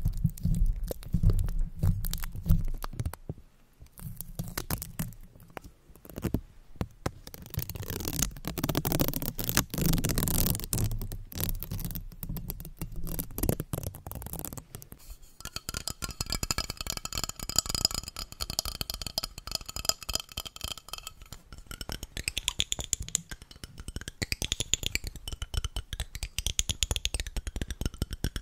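Washi tape on a microphone grille: fingertips tapping and scratching it with low thumps, then the tape peeled and pressed with fast crackling. About halfway it changes to a metal spray bottle held against the microphone, tapped and rubbed so that it rings, with scraping strokes near the end.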